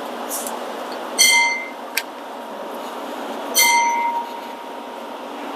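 Two ringing metallic clinks of steel hand tools or parts knocking together, about two seconds apart, with a sharp click between them, over a steady background hiss.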